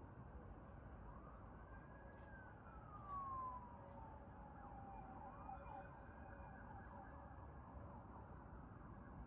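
Faint emergency-vehicle siren wailing, its pitch sliding slowly up and down twice, over a low, even rumble of city traffic.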